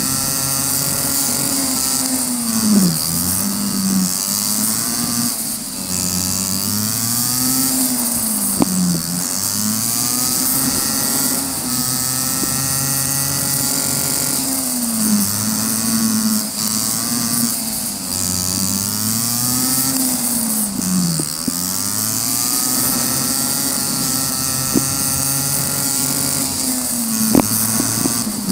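Go-kart engine heard from on board, its revs climbing along each straight and dropping off into each corner, over and over, under a steady hiss. A couple of sharp knocks stand out, one about a third of the way in and one near the end.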